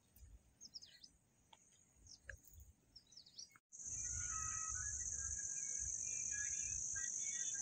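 A few faint, short bird chirps. Then, after a sudden cut, a steady high-pitched insect trill of night crickets, with fainter chirping calls under it.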